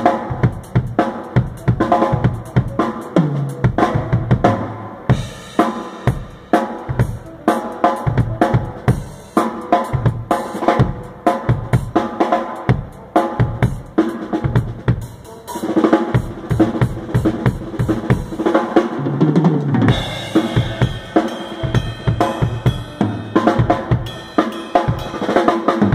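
DW drum kit played during a sound check: a busy groove on kick, snare and cymbals, with fills rolling down the toms about three seconds in and again near nineteen seconds. Cymbals ring out more heavily in the last few seconds.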